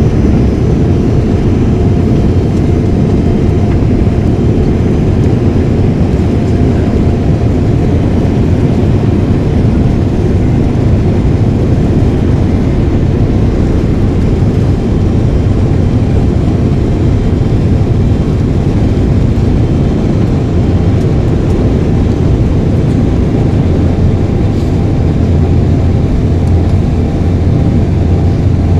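Embraer 195's CF34-10E turbofan engines at takeoff thrust during the takeoff roll, heard inside the cabin as a loud, steady roar with a faint steady whine above it.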